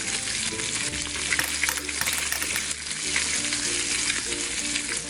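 Steady frying sizzle from a toy kitchen set, as the pretend steak cooks in the pan.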